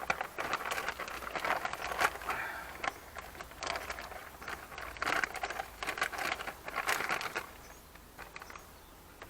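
Irregular rustling, crackling and clicking of car parts being handled during hose removal. It dies down after about seven and a half seconds.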